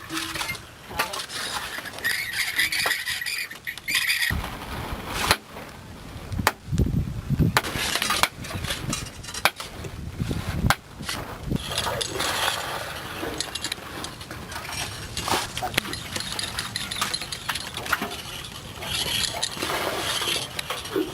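Irregular knocks, clinks and scrapes of hand tools striking rock and earth during manual well digging. A high squealing tone sounds briefly a couple of seconds in.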